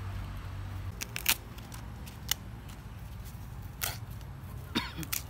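Fresh green corn husks being torn and peeled off the ear by hand: a handful of separate crisp tearing strokes, the loudest about a second in.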